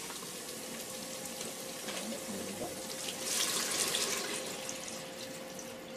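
Water poured from a plastic measuring jug into the hot inner pot of an electric pressure cooker. The pour is loudest about three to four and a half seconds in.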